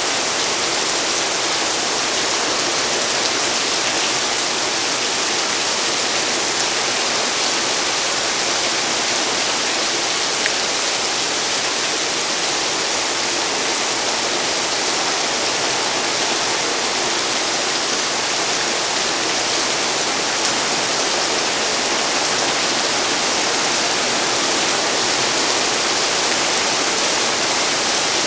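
Heavy rain pouring down: a steady, even hiss with no breaks.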